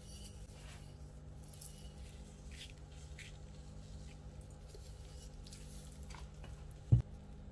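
Salt sprinkled over flour in a plastic bowl: faint scattered rustling of falling grains over a steady low hum, with one sharp knock about seven seconds in.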